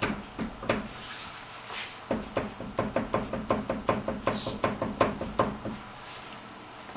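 Front wheel of a 1986 Mustang GT being rocked in and out by hand, setting off a few knocks and then a quick run of clunks, several a second, from the steering linkage. This is the free play of a worn-out inner tie rod on the power steering rack.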